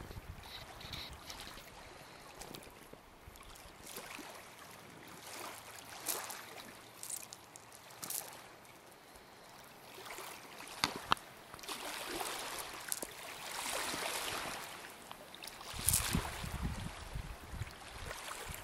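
Red fox rummaging in a plastic bag among pebbles: irregular rustling and crinkling with small clicks and scrapes, a few sharper clicks midway and a louder rustle near the end.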